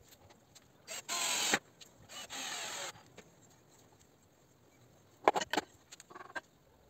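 Pine slats being worked on a wooden frame: two short, steady bursts of noise about a second apart, then a handful of sharp wooden knocks near the end as boards are set down.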